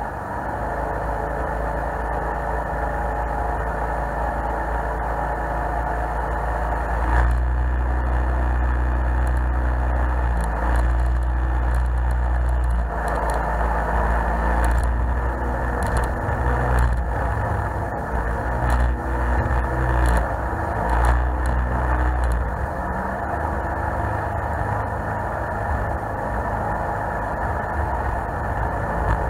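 Jet boat running at speed up a river, its engine droning steadily under rushing water and hull noise. From about seven seconds in the low rumble grows heavier, with scattered knocks and rattles as the hull crosses rough water and the wake of a boat ahead, easing off after about twenty-two seconds.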